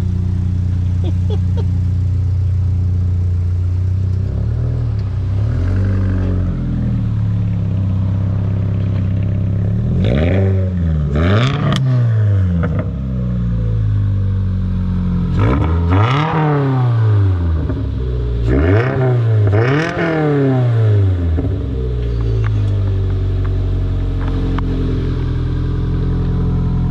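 2022 Toyota GR86's 2.4-litre flat-four running through a Borla aftermarket exhaust: a steady idle, blipped in quick free revs about ten, sixteen and nineteen to twenty-one seconds in, each rising and falling back to idle.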